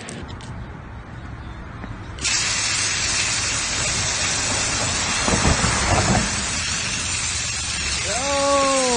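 An aerosol can of red temporary hair-colour spray hissing in one continuous spray; it starts abruptly about two seconds in. Near the end a short cry rises and falls in pitch over the hiss.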